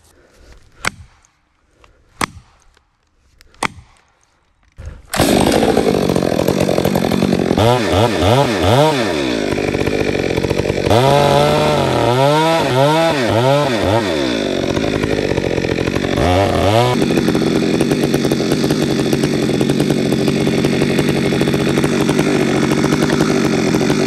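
Three sharp knocks about a second and a half apart, plastic felling wedges being driven into the cut. Then a chainsaw comes in loud at full throttle about five seconds in, its engine note sagging and recovering several times under load as it cuts into the tree.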